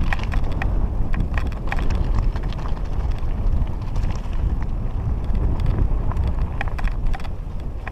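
Mountain bike descending a rocky trail: wind buffeting the microphone in a heavy rumble, over a quick, irregular clatter of the bike and its tyres rattling across loose stones.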